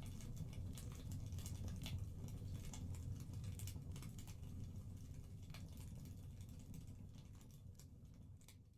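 Wood fire crackling in a fireplace: scattered sharp pops and snaps over a low rumble, fading out near the end.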